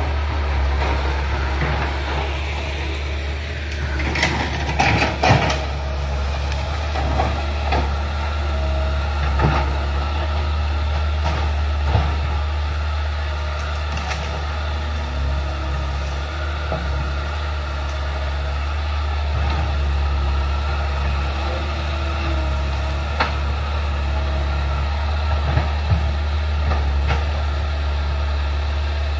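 Crawler excavator's diesel engine running steadily with a deep hum while it clears forest, with scattered sharp cracks and knocks, a cluster of them about four to five seconds in.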